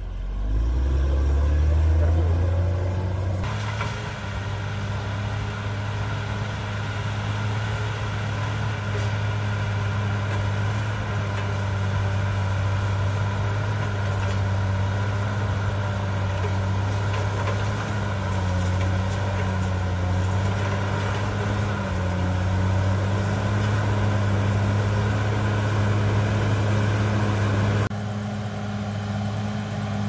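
CAT D6R XL crawler bulldozer's diesel engine running under load as the blade pushes earth and rock. Its pitch rises over the first second or two, then holds steady.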